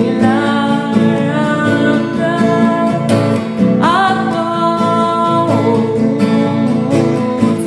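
A solo voice singing a Yoruba hymn in long held notes over guitar accompaniment, sliding up into a new note about four seconds in.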